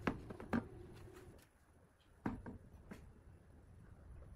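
Light knocks and taps from hands handling a plywood box and its metal fittings: two sharp knocks close together at the start, then a couple more about two seconds in.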